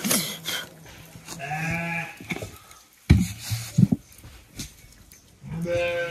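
A goat bleating twice: once about a second and a half in, and again near the end. Two sharp knocks fall in between.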